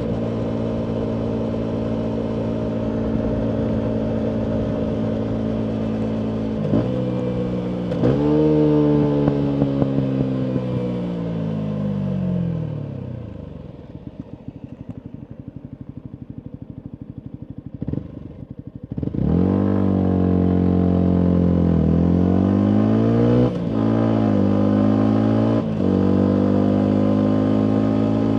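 Yamaha MT125's 125 cc single-cylinder engine through a full Akrapovic exhaust while riding. It holds steady revs at first, then about eight seconds in the revs fall as it slows, with a few sharp pops on the overrun, and it settles to a low idle for about five seconds. It then pulls away, the revs rising through two upshifts before running steadily again.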